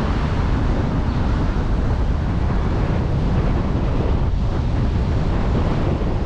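Steady wind rumble on the microphone over the road noise of a moving car.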